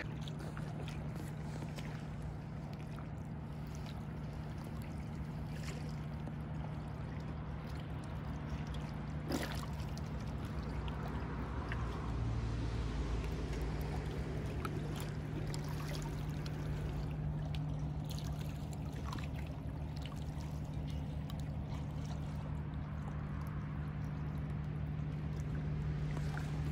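A steady low hum runs throughout, with lake water lapping and trickling over it and a few faint ticks.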